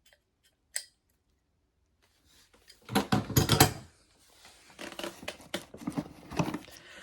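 Hand tools being handled in a tool bag: a single click about a second in, then a loud burst of rattling and clicking around three seconds in and a run of lighter clicks and rustling after, as tin snips are pulled out and their blades worked.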